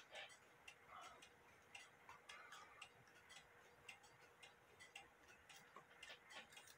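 Faint, even ticking of a mechanical clock, several ticks a second, over otherwise near-silent room tone.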